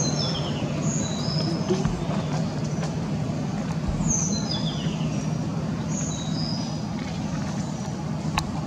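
Steady low rumble of a motor vehicle. Over it, a high whistled phrase of descending notes comes at the start and again about four seconds in, with a few single high notes between.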